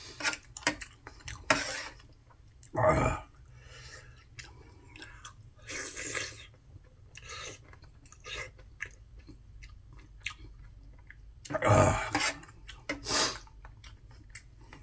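A person chewing and eating: a run of small wet mouth clicks and smacks, with two louder, longer mouth noises about three seconds in and again near twelve seconds.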